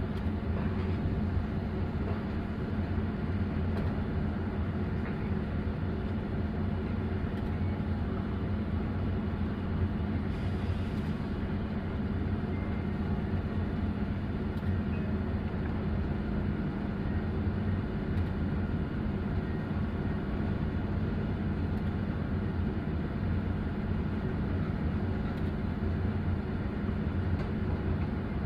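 Diesel engine of a Hitachi long-reach excavator running steadily, a constant low drone.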